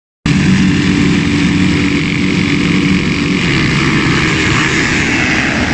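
A field of motocross bikes revving at the start gate, engines held at a steady pitch; about three and a half seconds in they launch off the gate and the steady note breaks up into a dense, rough full-throttle din of many engines.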